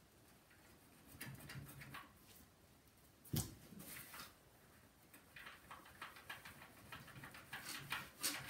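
Faint scrubbing and wiping with a sponge and paper towel on the plastic casing of a Samsung SyncMaster 700s CRT monitor, in short rubbing strokes, with a single knock about three and a half seconds in and busier rubbing near the end.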